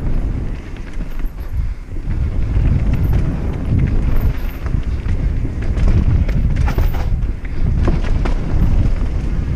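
Mountain bike riding down a dirt trail: wind buffeting the microphone over the rumble of the tyres, with a run of rattles and knocks from the bike over bumps between about six and nine seconds in.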